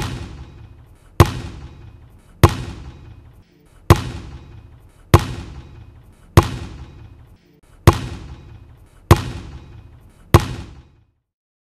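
A basketball bounced slowly on a hard court, nine bounces about a second and a quarter apart, each followed by an echoing tail.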